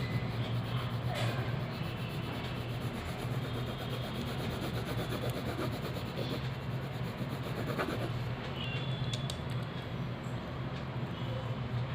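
Drawing or colouring on paper: a tool rubbing steadily across the sheet, over a steady low hum, with a few faint clicks.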